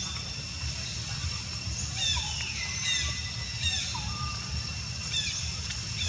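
Outdoor forest ambience: birds giving short chirps that sweep downward in pitch, four or five of them about a second apart, over a steady high-pitched insect drone and a constant low rumble.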